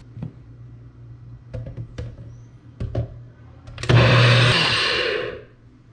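NutriBullet blender whirring for about a second and a half as it blends fresh green seasoning of herbs, peppers and onions. Before it starts, the plastic cup knocks and clicks a few times as it is set and pressed onto the motor base.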